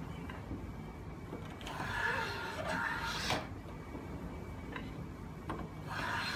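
Hand plane run on its side along a board's edge, taking two cutting strokes: each is a hiss of the blade slicing wood, about a second and a half long, that cuts off sharply at the end of the stroke. One comes a bit over a second in, the other near the end.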